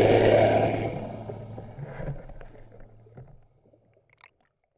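A boat's motor humming low and steady under churning water, fading out over about three seconds; a few faint clicks near the end.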